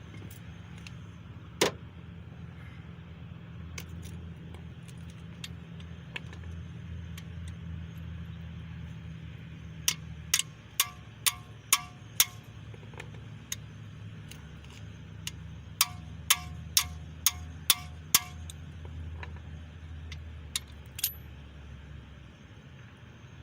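Metal being struck with a hammer: two quick runs of about six ringing metallic strikes each, and a single sharp knock near the start, over a steady low hum.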